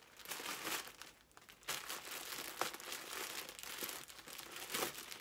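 Clear plastic garment bag crinkling as it is handled and pulled open, with a few sharp crackles along the way.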